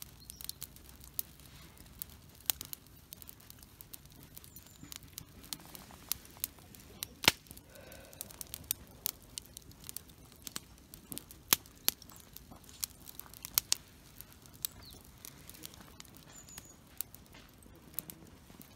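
Wood fire crackling, with irregular sharp pops, a few much louder than the rest.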